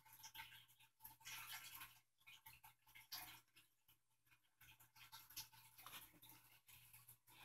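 Near silence: a faint low hum with scattered soft scratching and rubbing noises.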